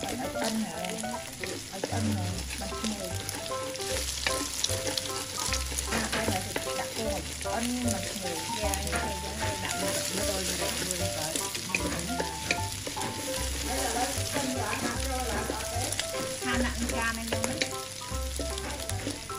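Scrambled eggs and sliced sausage sizzling in a hot wok, with a wooden spatula scraping and tapping against the pan as they are stirred. Background music with a steady bass beat plays underneath.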